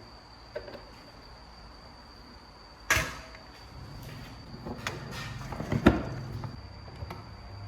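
Clicks and knocks from the restored table fan being handled, one sharp loud knock about three seconds in and the loudest near the end. A low electric motor hum sets in about four seconds in, likely the fan's motor being switched on for its test.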